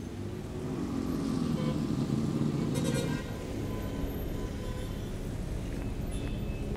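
Street traffic of motorcycles and cars with engines running steadily; one engine rises in pitch about a second in as it speeds up.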